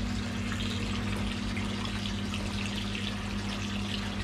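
Tap water from a garden hose pouring steadily into a hot tub as it is topped up, with a steady low motor hum underneath.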